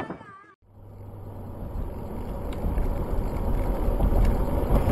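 Steady road and wind noise of a moving car, heard from inside the car through a dash camera, with a low hum, growing slowly louder. It follows a brief fading wavering tone and a moment of silence at the start.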